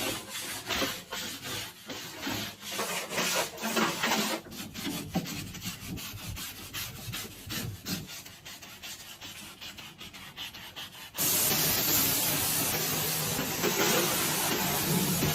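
Brush scrubbing a surface in quick, irregular strokes, then about eleven seconds in a steady hissing spray starts abruptly.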